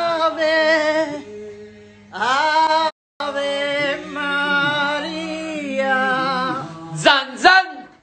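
Voices singing a religious hymn with long held notes, unaccompanied. The singing breaks off briefly about three seconds in, and two short rising high notes come near the end.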